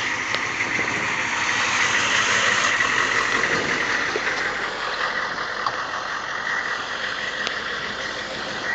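Humvee's V8 diesel engine running as the truck creeps slowly at low speed, with a steady high whine over the engine noise.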